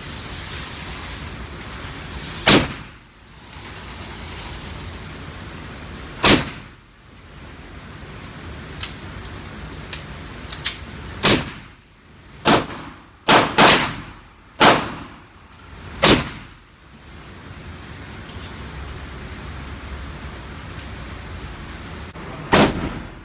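Gunshots from firearms at a shooting range, about nine loud shots at irregular intervals, with a quick run of four or five in the middle. Each shot has a short ringing tail, and a few fainter cracks fall between them.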